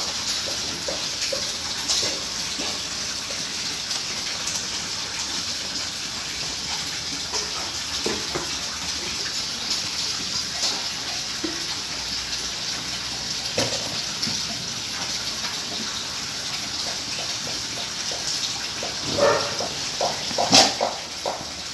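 A Rottweiler mouthing and licking a raw carrot: soft clicks and knocks now and then over a steady hiss like running water, with a cluster of louder knocks near the end.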